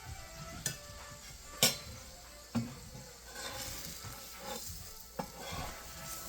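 Paratha frying in oil on a hot griddle with a faint sizzle, broken by four sharp knocks, the second one loudest.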